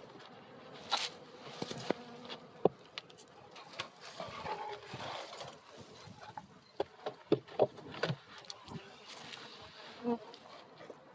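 Honey bees buzzing steadily around an open hive, with scattered sharp knocks and clicks as the hive is worked.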